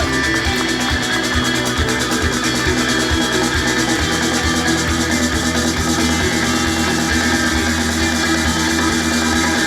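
Loud rock music with guitar and a steady kick-drum beat, with no singing: an instrumental stretch of an idol group's song.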